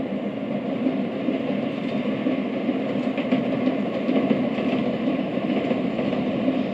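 N700-series Shinkansen train running along the elevated track: a steady rolling noise of wheels on rail with faint clicking, growing slightly louder.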